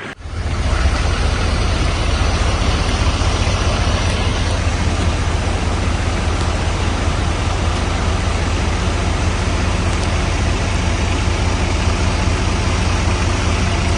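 A motor vehicle's engine running steadily at constant speed, a deep even hum with a steady hiss over it. It starts abruptly at the beginning.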